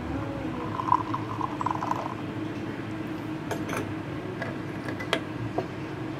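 Espresso poured from a small steel measuring cup into a glass measuring jug, a brief trickle, then several light clicks and clinks as the cup is handled and set aside. A steady low hum runs underneath.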